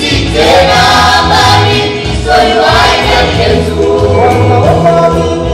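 Choir singing with a band accompaniment, in a gospel style.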